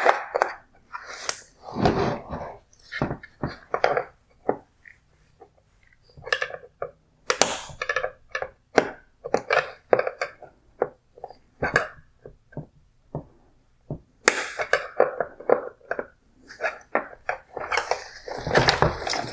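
Irregular hard plastic clicks, knocks and rattles from a 2006 Mercedes-Benz CLS bi-xenon headlight housing and its wire connectors being handled and worked apart by hand, with several louder knocks among them.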